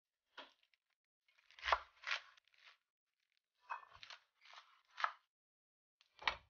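Fresh petchay (bok choy) being handled: a series of short, separate crisp crunching and tearing sounds as the leaves and stalks are picked up and broken, with a final short sharp sound near the end.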